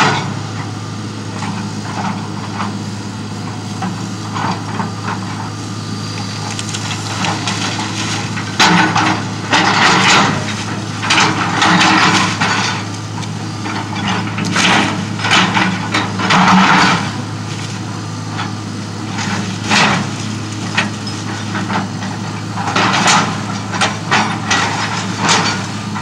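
Hitachi tracked excavator's diesel engine running steadily while its bucket rips into a wood-frame house, with repeated bursts of cracking, splintering and crashing timber and debris.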